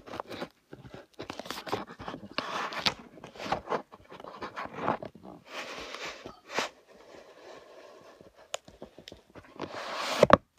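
Uneven rustling, scraping and crunching of something handled close to the microphone, with sharp clicks mixed in. It goes quieter for a couple of seconds after about seven seconds, then picks up again near the end.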